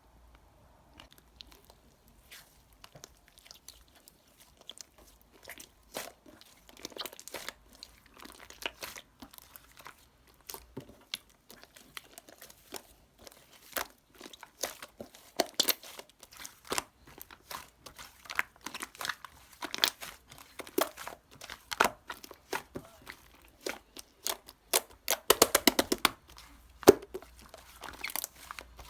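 Irregular crinkling, crunching and tearing sounds of something being handled by hand, growing busier, with a quick run of rapid crackles near the end.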